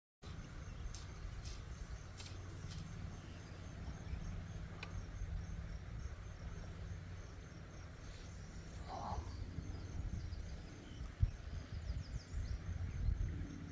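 Insects chirping in a steady, fast-repeating pulse over a low rumble, with a few faint clicks and a single sharp thump near the end.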